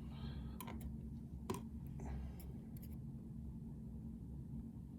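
A few faint, sharp clicks of small lock pins and a tool being handled while a lock core's driver pins are taken out, over a low steady hum.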